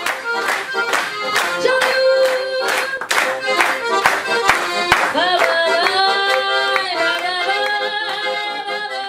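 Piano accordion playing with short sharp rhythmic beats. About five seconds in, a woman's singing voice swoops up into long held notes, without words, over the accordion.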